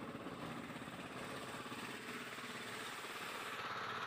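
Outrigger boat's small motor running steadily at cruising speed, with a rapid, even beat.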